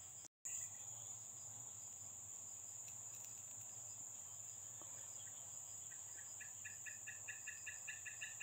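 Faint, steady high-pitched insect chorus, crickets or similar, with a second rapidly pulsing call joining about six seconds in at several pulses a second. The sound drops out briefly just after the start.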